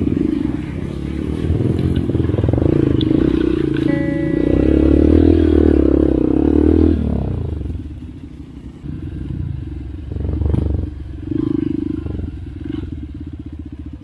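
Dirt bike engine pulling hard under throttle for about seven seconds, loudest just before it cuts back suddenly. It then drops to low revs with three short throttle blips.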